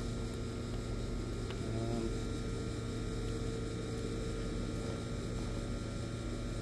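A steady droning hum with a few constant tones over it, like a small motor or fan running.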